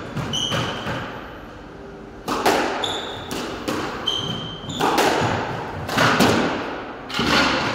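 Squash rally: the ball is struck by rackets and thuds off the walls, a hard knock about every second or so, each echoing in the enclosed court. Short, high squeaks of court shoes on the wooden floor come between the hits.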